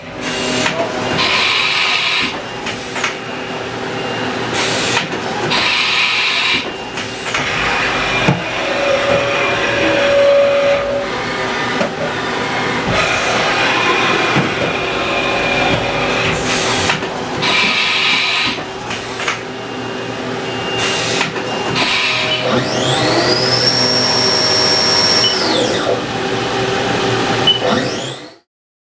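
A Haas VF-3B CNC vertical mill running under power, with machine whines and repeated bursts of noise from its moving parts. Near the end the spindle whines up to speed, holds for about two seconds, then winds down.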